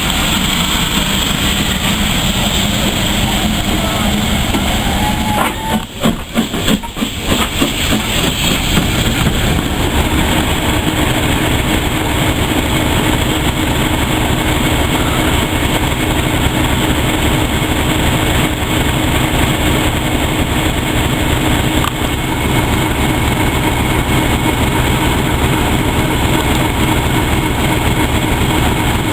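Heritage railway train running along the track: a steady, loud rumble with a regular rhythmic beat, with a brief rough patch about six seconds in.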